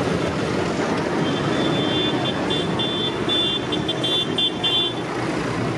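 Diesel engines of large farm tractors, a New Holland and then a Massey Ferguson, running as they drive past one after the other. From about a second in, a high beeping sounds in short, irregular pulses over the engine noise.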